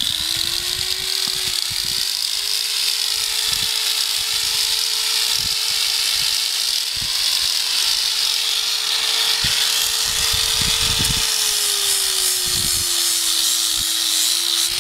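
An electric angle grinder running continuously, grinding down a horse's hoof in a trim. It gives a loud, steady high whine over a hiss. The pitch steps up about two seconds in and sags lower over the last few seconds.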